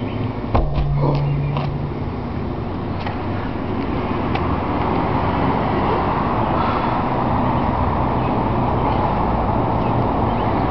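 A heavy tire of about 800 lb slams flat onto asphalt about half a second in, completing a flip. From about four seconds a steady rumble of road traffic rises and holds.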